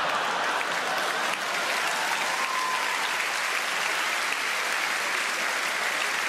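A large audience applauding, a dense, steady clapping that holds at an even level.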